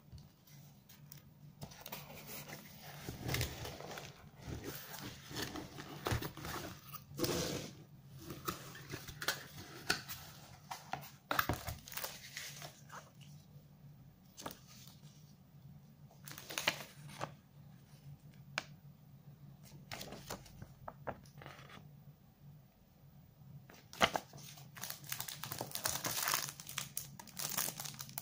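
Unboxing handling noise: cardboard box flaps and packaging handled, with plastic wrap and paper crinkling and rustling in irregular spells and scattered sharp clicks and taps, the loudest a few seconds before the end. A faint steady low hum runs underneath.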